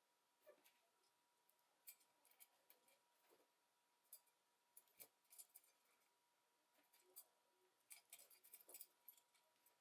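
Faint, irregular small clicks and light scraping from the parts of a Logitech G304 wireless mouse being handled and worked on by hand, some in quick clusters, over a faint steady high tone.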